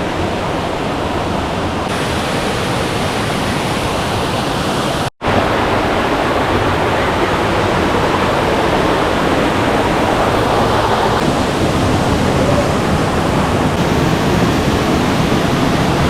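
Waterfall rushing, a steady loud roar of falling water; the sound cuts out for an instant about five seconds in.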